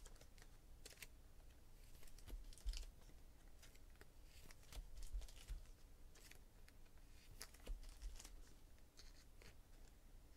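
Faint tearing and crinkling of trading-card pack wrappers and cards being handled, in scattered soft crackles and ticks.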